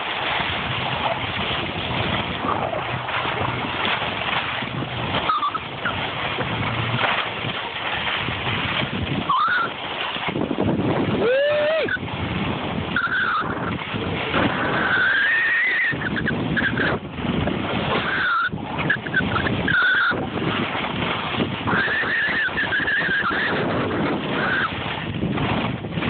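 Continuous rushing noise of wind on a phone microphone and skis sliding over snow during a downhill run. From about ten seconds in, a child gives several high-pitched screams that rise and fall.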